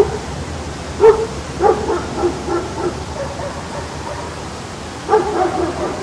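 Street dog barking in irregular runs: a bark right at the start, two loud barks about a second in, then a quick string of lighter barks, and another burst of barks near the end. Steady low background noise runs underneath.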